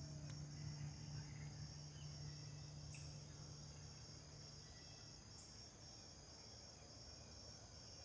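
Faint, steady high-pitched chirping of insects, evenly pulsing, with a low steady hum underneath that fades out about halfway through.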